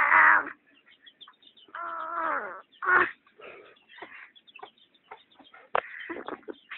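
Chickens clucking: a few separate calls, with a drawn-out, slightly falling call about two seconds in and sharp loud ones at the start and about three seconds in.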